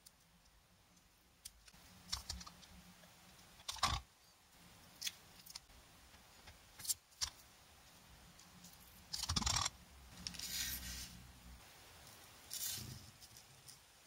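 Hands working the end of a coaxial antenna cable: scattered small clicks and taps, with a few louder short scrapes and foil crinkling around four seconds in and again from about nine to eleven seconds in, as the cable is cut and its foil shield is folded back.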